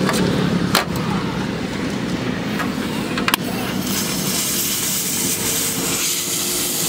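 Gas welding torch hissing steadily from about four seconds in as it is worked along a car's rocker panel seam, over a steady background noise. Two sharp metal taps come before it, one under a second in and one past three seconds.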